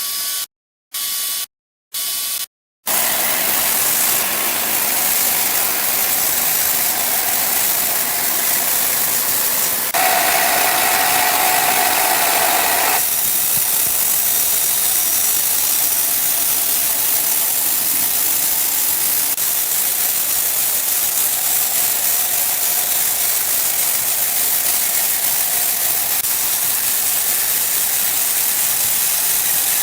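Sawmill machinery running: a steady, hissing mechanical noise. It comes in short chopped bursts with silent gaps for the first few seconds, and a brief higher tone rises out of it about ten seconds in.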